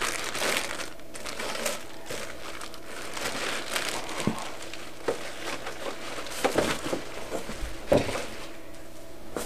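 Clear plastic bag crinkling and rustling as a computer monitor is handled and lifted out in its wrap, with a few knocks in the second half.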